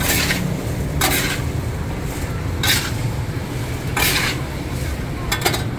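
Metal scoop scraping through hot black sand and chestnuts in a large iron wok as the chestnuts are sand-roasted, a short rasping stroke about every second or so, five times in all. A steady low rumble of road traffic runs underneath.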